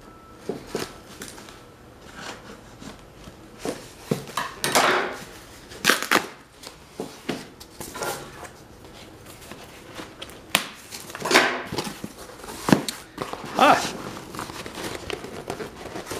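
Scissors cutting the packing tape on a cardboard box, then tape ripping and cardboard flaps being pulled open and scraping. The sound comes as a string of irregular short rips, scrapes and clicks.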